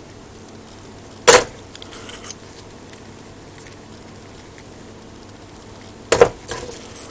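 Small metal parts being handled and set down on a workbench: two sharp metallic knocks, about a second in and near the end, each followed by a few light clicks.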